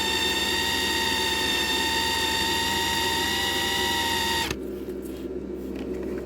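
Small electric drill running at a steady speed with a high whine, spinning a toy car axle held in its chuck while sandpaper cleans the axle's end. It switches off suddenly about four and a half seconds in.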